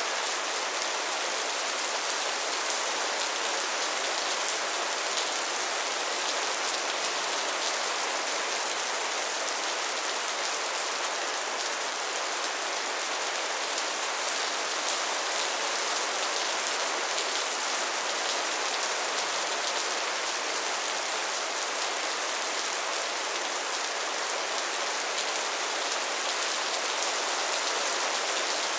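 Steady soft rain falling, an even hiss with fine pattering of drops.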